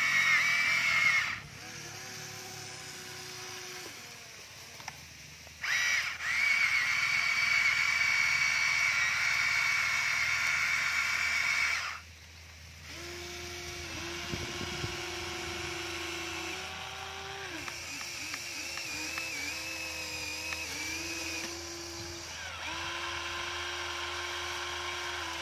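Small electric motors and gearboxes of a Huina toy remote-control excavator whining as it drives its arm, bucket and tracks, in several runs that start and stop. The loudest, higher whine runs from about six to twelve seconds in; lower, quieter whines that shift in pitch follow through the second half.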